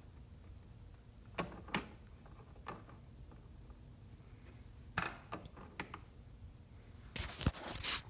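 A few separate light clicks and knocks from small parts being handled, then close rustling and scraping near the end as the phone that is recording is picked up.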